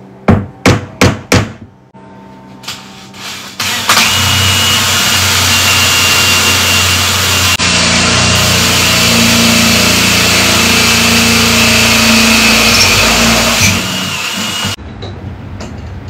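Four quick hammer blows on a steel punch held in a drill jig on the safe door, then a DeWalt cordless drill boring into the steel door. After a couple of short starts, the drill runs steadily with a thin high squeal for about ten seconds, eases, and stops. The hole is being drilled to open a safe whose SecuRam keypad lock has failed.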